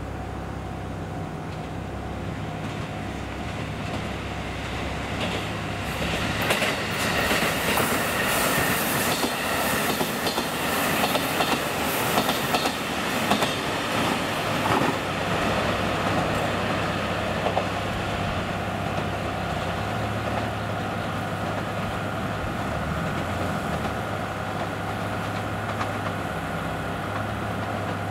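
KiHa 75 diesel railcar train approaching and passing close by at speed: diesel engines running, wheels clicking over the rail joints in quick runs, loudest in the middle. The sound then settles into a steady low drone of train engines.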